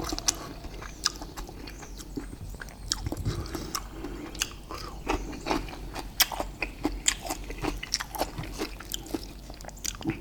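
Close-miked eating: chewing with irregular wet mouth smacks and crunches.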